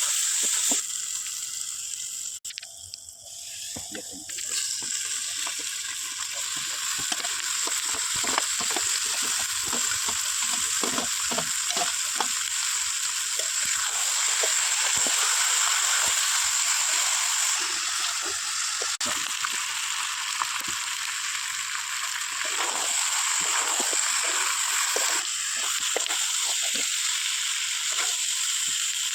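Chicken feet frying in hot oil in a pan: a steady sizzle with many small crackles and spatters. It drops away briefly about three seconds in, then picks up again.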